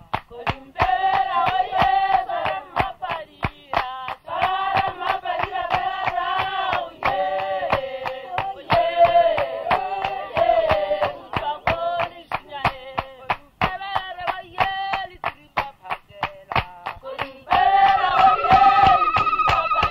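A group of men and women singing together to steady hand-clapping and hand drums, about two or three beats a second. A high, steady note is held over the singing near the end.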